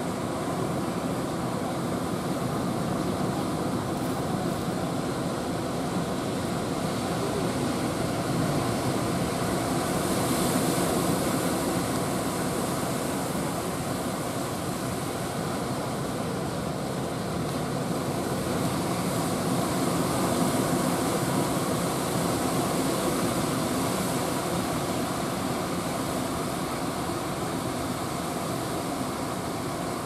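Rough surf breaking and washing, swelling twice with louder hiss, over a steady drone from the engines of motorised outrigger fishing boats.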